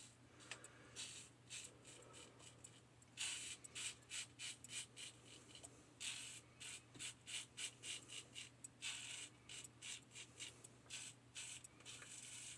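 Single-edge safety razor (1895 Star Lather Catcher with a Gem blade) scraping through lathered stubble in quick short strokes, several a second, faint and light at first and denser from about three seconds in.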